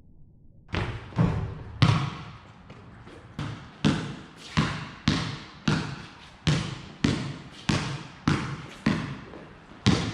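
Basketball bouncing on a concrete court, each bounce ringing off the surrounding brick walls. A few uneven bounces come about a second in, then steady dribbling at a bounce every half second or so.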